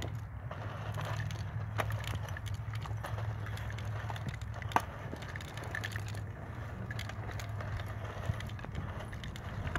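Earthway push garden seeder rolling down a row, its wheels crunching over loose dry soil and clods while the frame and seed mechanism rattle, over a steady low rumble. A few sharp clicks stand out, about three seconds apart.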